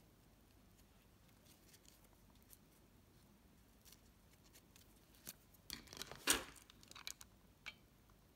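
Handling noise from a ribbon-wrapped headband and satin ribbon flowers: a few faint clicks, then a cluster of sharper clicks and rustles a little past halfway, loudest about six seconds in.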